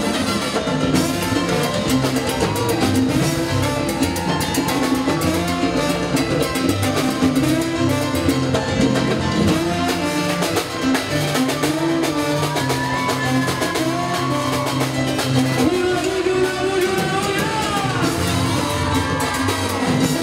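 Live salsa band playing an instrumental passage, with trombones and congas and timbales over a low bass line; melodic lines swell in the second half.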